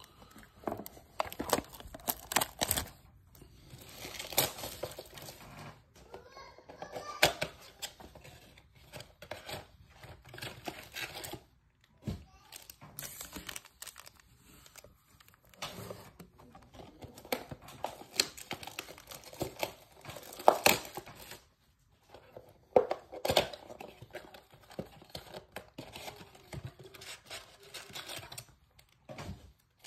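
Plastic wrap torn off 2022 Topps Chrome blaster boxes, the cardboard boxes opened and the foil card packs inside handled. It is an irregular crinkling and tearing with sharp clicks and a couple of brief pauses.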